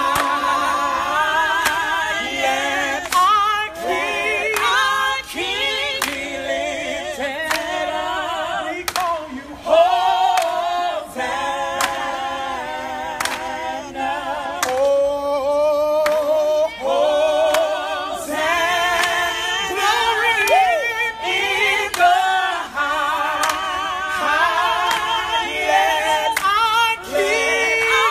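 A group of people singing a worship song unaccompanied, voices wavering with vibrato.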